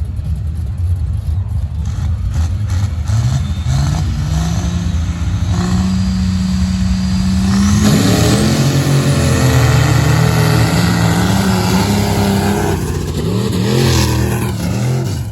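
Pickup trucks drag racing on a sand strip at full throttle, engines running hard and rising in pitch, loudest about halfway through, then dropping away near the end.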